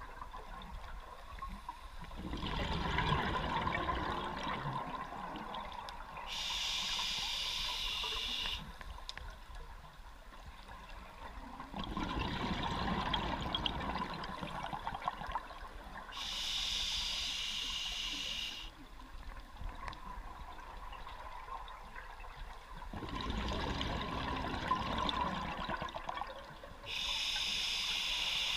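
Scuba diver breathing through a regulator underwater, a slow cycle about every ten seconds. Each breath out is a rush of bubbling exhaust lasting about three seconds, then a steady hiss of about two and a half seconds as air is drawn through the demand valve, three times over.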